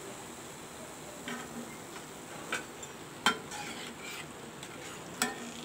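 Oil sizzling softly in a kadhai as corn-flour nacho chips deep-fry, with a perforated metal spoon clinking sharply against the pan about four times while chips are scooped out.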